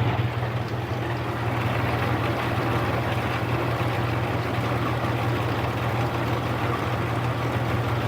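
Metal lathe running with a steady, even motor hum while a 45-degree chamfer is turned on the end of a rod.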